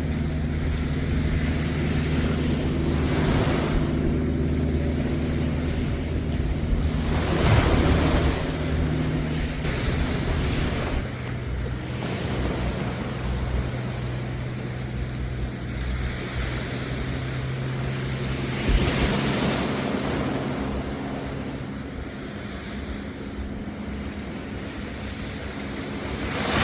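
Waves breaking and washing up a beach, swelling every few seconds, over a steady low engine hum that shifts lower in pitch about eleven seconds in.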